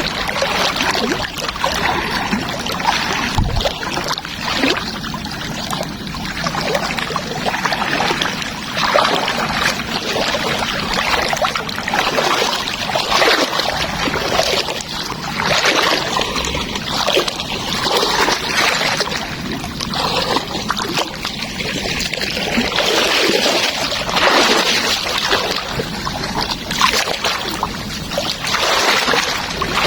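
Floodwater splashing and sloshing in a run of irregular splashes.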